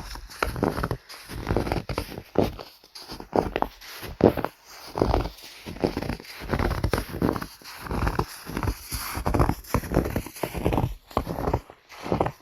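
Footsteps crunching in snow, one step after another at a steady walking pace.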